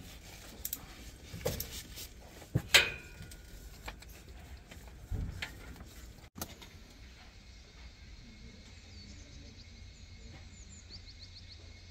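Scattered light clicks and knocks as the engine's white-handled oil dipstick is handled, the sharpest a click with a short ring about three seconds in. Faint high bird chirps sound near the end over a low background.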